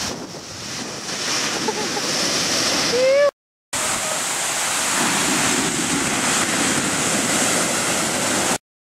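Heavy shore-break surf: waves dumping and whitewater rushing in a dense, steady wash of water noise. It drops out for a moment about a third of the way in and cuts off suddenly near the end. Just before the dropout comes a short rising call from a voice.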